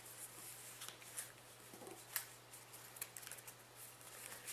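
Faint rustling and crinkling of a sheet of origami paper being folded and creased by hand, with a few short, irregular crackles.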